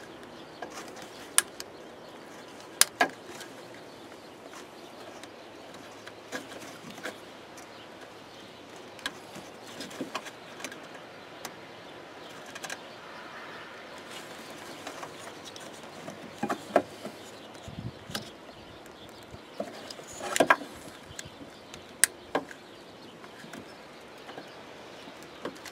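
Small plastic clicks and rattles from fingers working the wiring plug of a plow light module. The clicks come one at a time and irregularly over a steady background hiss.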